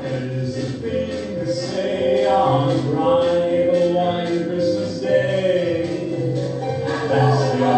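Several voices singing a Christmas medley together over backing music, with long held notes.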